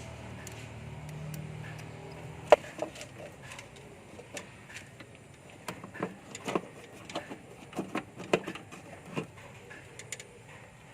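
Clicks and taps of small plastic parts being handled as a T10 LED bulb is fitted into a car light socket: one sharp click about two and a half seconds in, then scattered lighter clicks.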